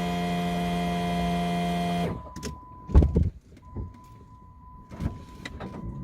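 A small electric motor whines at a steady pitch and stops suddenly about two seconds in. A few loud clunks follow, then a steady high-pitched beep.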